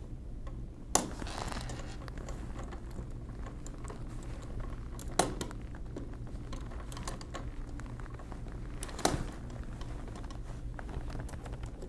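Small metal parts of a Monroe Model K mechanical calculator clicking and tapping as a bushing is worked by hand into a slot in the frame: three sharper clicks about four seconds apart, with faint ticks between, over a steady low hum.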